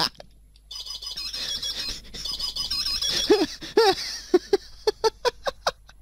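Wireless doorbell receiver's small speaker playing one of its built-in electronic bird-call melodies: fast looping high warbles, then a run of short chirping notes about four a second. It sounds like someone is strangling a bird.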